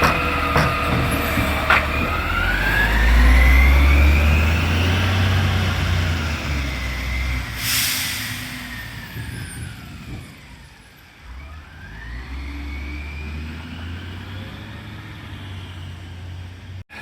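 Side-loader garbage truck's diesel engine revving up as the truck moves off, with a short hiss of air about eight seconds in. The engine sound then dies away and comes back fainter and steady.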